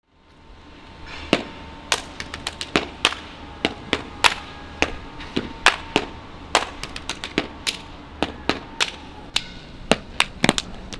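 Body percussion: sharp claps and slaps struck on the body in a rhythm, starting about a second in and coming faster toward the end.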